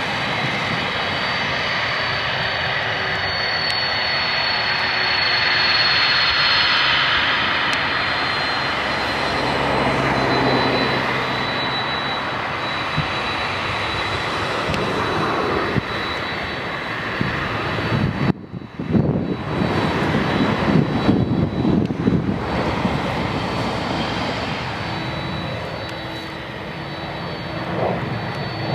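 Boeing 767-300ER jet engines running: a steady rush of engine noise with a thin high whine over it. Just past two-thirds of the way through, the sound drops out for a moment, then comes back as a rougher, uneven rumble.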